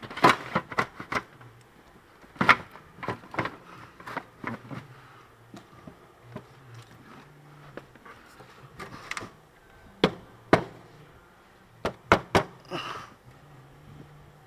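Sharp plastic clicks and knocks as a washer fluid reservoir and its grommets are pushed and worked into place inside a car's wheel well, with clusters of louder snaps about two and a half seconds in and around ten and twelve seconds in.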